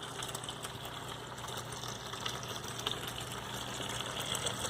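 Vinegar splashing steadily from a return hose into a bucket over a low steady hum from a submersible aquarium pump. This is a descaling flush circulating vinegar through a tankless water heater.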